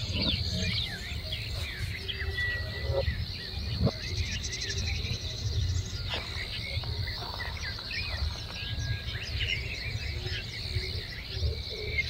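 Many small birds chirping and twittering over a steady high insect trill, with a low rumble underneath.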